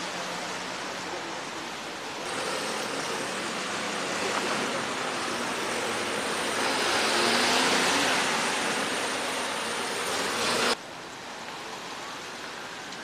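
Steady rushing noise with no clear pitch. It rises in level about two seconds in and drops off abruptly near the end.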